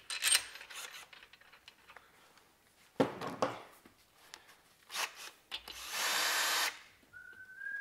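An 18-volt cordless drill-driver with a socket runs for about a second on a main bearing cap bolt of a BMW M52 engine block. A sharp knock comes a few seconds before it, and someone starts whistling short notes near the end.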